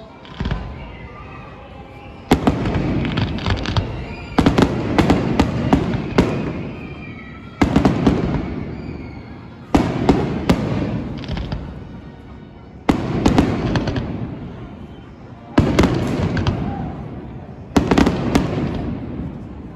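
Fireworks bursting: a loud bang about every two to three seconds, each followed by crackling and a rumble that fades, with faint whistles in the gaps near the start.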